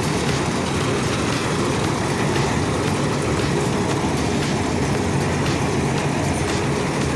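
Combine harvester running steadily as its header cuts dry standing crop: a constant engine hum under dense mechanical noise.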